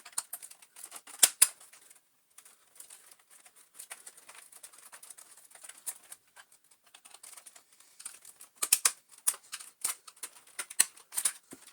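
Plastic back cover of a Shark Navigator Lift-Away upright vacuum cleaner being pried off its body: a scatter of small plastic clicks and snaps as the housing unclips, with a cluster about a second in and a busier run near the end.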